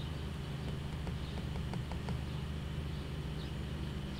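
Room tone: a steady low hum, with a few faint ticks between about one and two seconds in.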